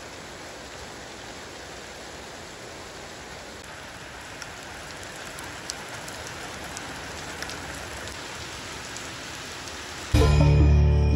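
Steady rain hiss with a few faint drop ticks, then, about ten seconds in, a sudden loud burst of music with heavy bass.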